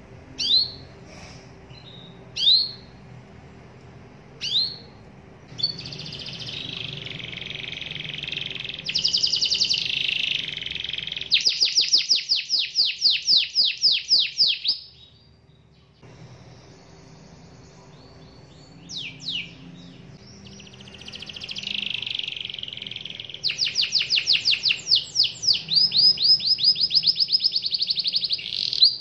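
Domestic canary singing: a few separate sharp chirps, then long runs of fast rolling trills. It pauses briefly in the middle, then starts rolling again.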